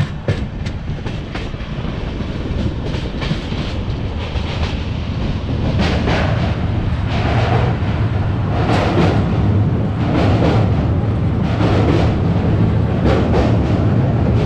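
Passenger train running along the track, heard from inside a coach: a steady low rumble of the wheels with irregular clicks over the rails, growing slightly louder.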